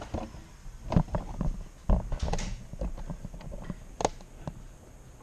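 Irregular knocks and thumps from footsteps and from handling a Nerf blaster with the camera taped to it, the sharpest about one, two and four seconds in.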